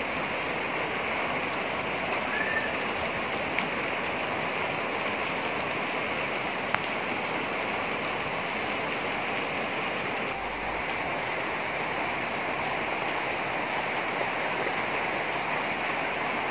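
Heavy rain falling steadily on clay roof tiles: an even, unbroken hiss of a downpour.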